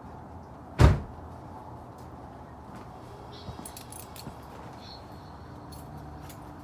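Subaru EJ22 flat-four engine idling steadily, just started after its timing-belt tensioner pulley was refitted straight, and sounding tight. A single loud thump about a second in, then light jingling of keys.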